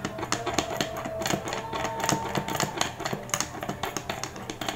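Quick, irregular light clicks and taps of metal parts knocking together as a motorcycle handguard's bolt and spacer are fitted by hand through its mounting bracket.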